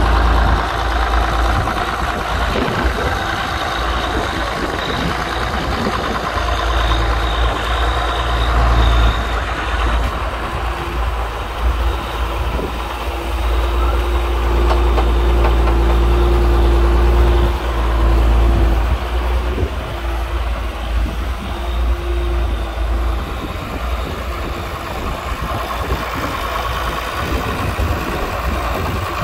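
Oliver 1955 tractor's six-cylinder diesel engine running steadily.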